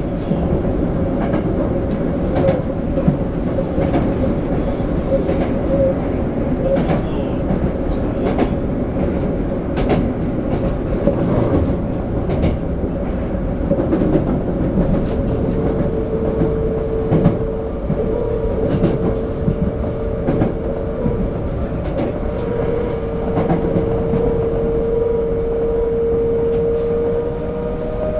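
Running noise inside a Toei 5300 series subway car under way: a steady rumble with irregular clicks of wheels over rail joints. A whine comes in about halfway through and creeps up in pitch near the end.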